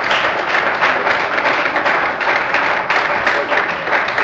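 Congregation applauding: dense, loud clapping that begins to thin near the end.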